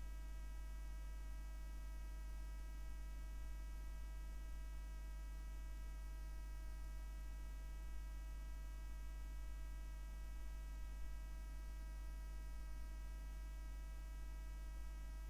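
Steady electrical mains hum, a low 50 Hz drone with a ladder of buzzing overtones, running unchanged without any other sound.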